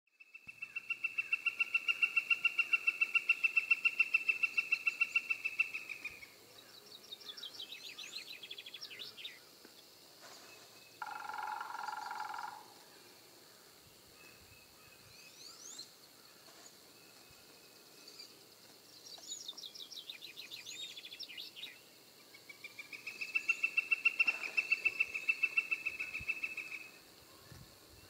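Northern flicker giving its long call, a fast run of the same note repeated for about six seconds, then again for about four seconds near the end. In between are quieter runs of rising high notes from other birds, and a short steady sound about eleven seconds in.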